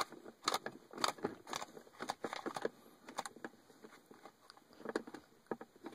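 Faint, irregular clicks and scrapes of a screwdriver turning out the Phillips screws of a car's console lid hinge, some strokes about half a second apart.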